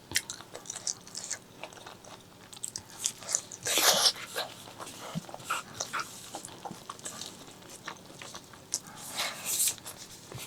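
Close-miked eating sounds: wet chewing and lip-smacking clicks, with two louder wet mouth noises, one about four seconds in and one near the end.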